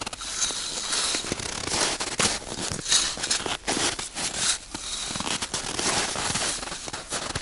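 Aluminium folding cot being unfolded on snow: a busy run of clicks and clatters from its metal frame and legs, with fabric rustling and snow crunching.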